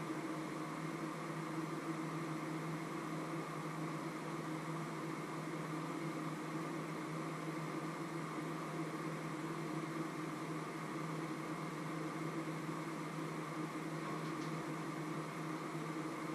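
Steady, unchanging mechanical hum of a running appliance, with a faint tick near the end.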